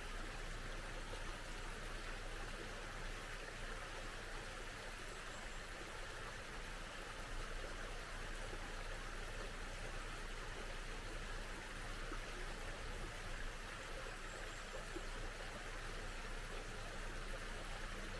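A small stream flowing steadily, its water making an even, unbroken rush.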